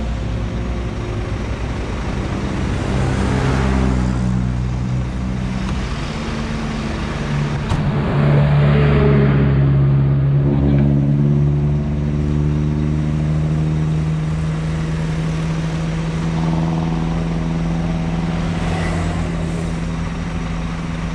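Scania P380 dump truck's diesel engine running on the road. Its note rises and drops a few times over the first twelve seconds, is loudest from about eight to eleven seconds in, then holds a steady pitch.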